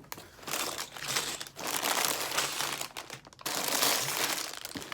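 Plastic bags of LEGO pieces crinkling as they are handled and shifted in the opened box, in uneven bursts with short lulls about a second and a half in and again just after three seconds.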